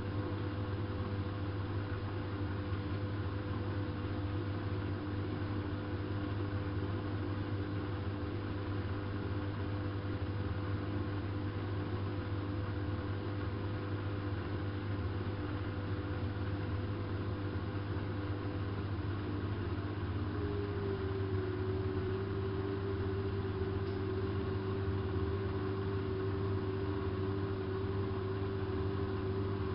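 hanseatic HWM814A3D washing machine running mid-cycle: a steady motor hum and whine. About two-thirds of the way through, the whine glides slightly lower in pitch as the drum speed changes.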